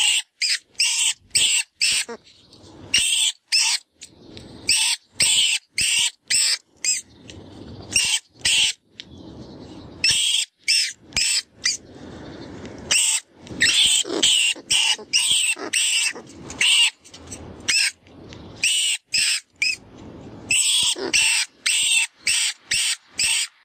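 Rodent distress call from the FoxPro 'Vermin Pest Control' predator caller sound: a rat squealing in distress, with short high squeaks coming in quick runs and brief pauses between them, and a lower raspy scraping now and then. It is a squeak call used to draw in foxes.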